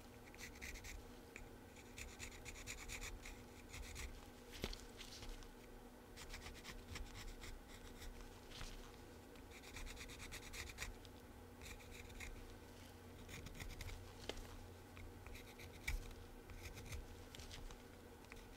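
Pencil scratching on a small carved wooden bee, drawing stripe lines around its body in short faint strokes with pauses between them.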